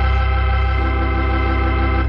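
Organ music: a single chord held steadily, the closing musical sting that ends a radio drama scene.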